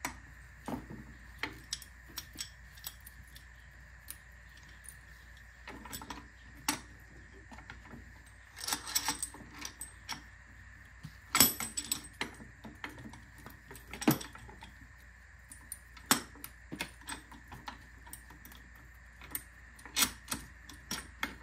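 Metal clinks and knocks of a strut spring compressor being hooked onto a rear coil spring, irregular and scattered, with a short flurry of clinks about nine seconds in and the loudest knocks around eleven and fourteen seconds in.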